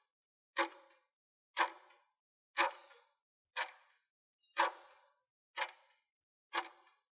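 Countdown timer sound effect ticking once a second: seven sharp clock-like ticks, each with a short ringing tail.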